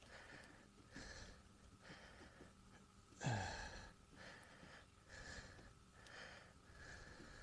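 Faint, soft strokes about once a second, typical of a brush dabbing resin into fiberglass cloth. About three seconds in comes a short, louder sigh that falls in pitch.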